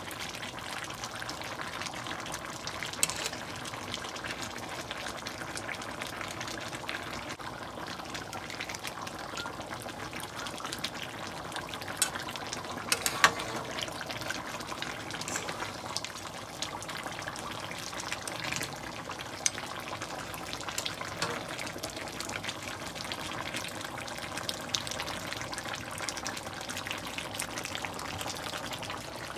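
Goat meat and tomato masala sizzling and bubbling steadily in a karahi as it is fried down until the tomatoes break into the gravy, over a faint steady hum. A few sharp clicks stand out about halfway through.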